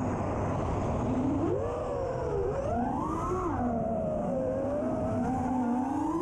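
FPV quadcopter's motors and propellers whining. The pitch rises and falls several times as the throttle changes, over a steady low rushing noise.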